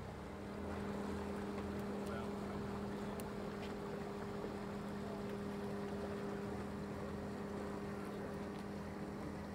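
A motor boat's engine running steadily as the boat passes, with an even low hum.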